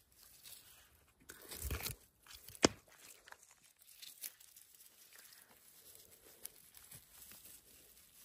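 Crunching and tearing of moss and forest-floor litter as a mushroom is twisted and pulled out by hand, with one sharp click about two and a half seconds in and a few fainter ticks after.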